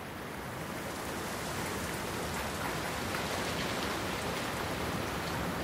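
Steady rain pattering, an even hiss of drops that grows slightly louder.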